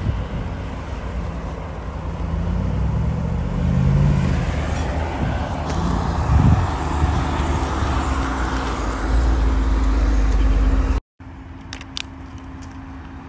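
Jeep Wrangler 392's V8 engine running and revving as it crawls off-road through tall grass, its pitch rising and surging briefly. About eleven seconds in the sound cuts off abruptly and gives way to a quieter, steady engine hum with a few light clicks.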